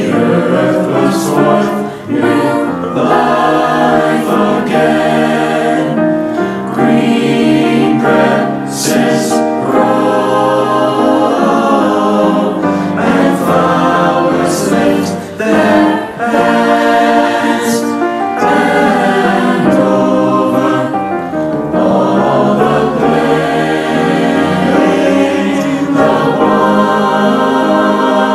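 High school chorale singing, many voices in sustained choral harmony, put together as a virtual choir from singers recorded separately at home.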